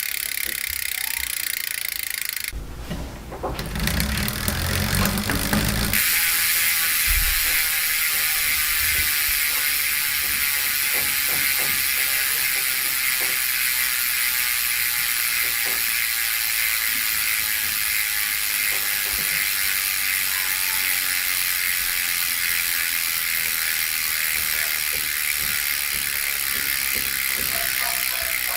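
Koozer XM490 Pro bicycle rear hub freewheeling, its six pawls ratcheting in a fast, steady, clicking buzz. About three seconds in there is a short low rumble of handling, then the buzz goes on steadily and a little louder.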